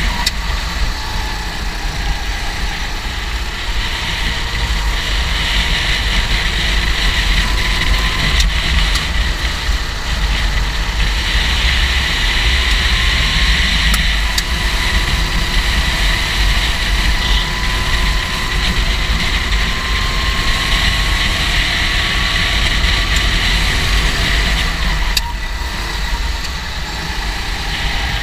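Go-kart engine running continuously, its pitch drifting slowly up and down, over a heavy low rumble.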